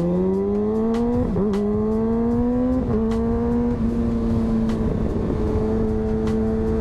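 Kawasaki ZX-6R 636 inline-four through an M4 slip-on exhaust, accelerating with the revs climbing. It makes two quick upshifts, about one and three seconds in, then holds a steady engine speed.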